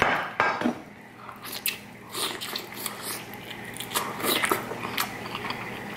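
Close-miked eating sounds: a person biting and chewing sauce-dipped lobster tail meat, with wet smacks and short mouth clicks scattered through.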